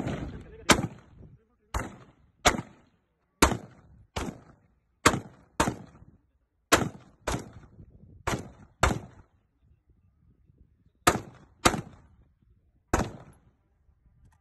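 Colt AR-15 rifle in 5.56×45 firing semi-automatic shots: fifteen sharp cracks, mostly fired in pairs about half a second apart, with a pause of about two seconds before the last three.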